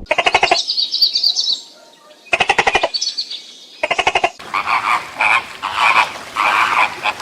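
Frogs croaking: three short rattling pulse trains, then a denser run of repeated croaking calls in the second half.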